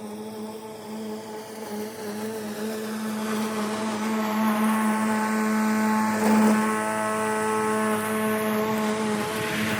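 Lawn mower running at a steady pitch, growing louder as it comes close and passes about six seconds in.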